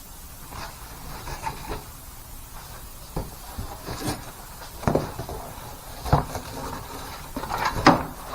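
Irregular knocks and clunks of things being handled and set down during work on the truck, about five sharp knocks with softer rustling between them, the loudest near the end.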